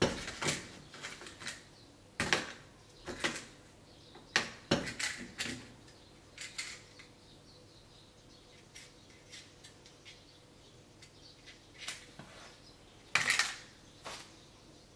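Small sharp clicks and knocks as a gas-hob knob is turned and a matchbox is handled one-handed. About 13 seconds in, a match is struck with a short loud rasp and catches.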